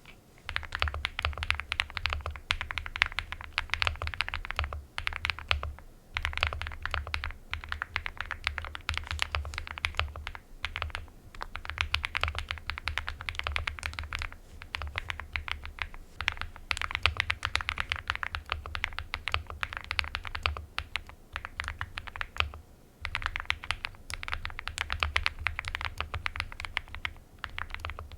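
A mechanical keyboard fitted with KTT Cabbage Tofu switches being typed on quickly, in runs of rapid keystrokes broken by short pauses every few seconds.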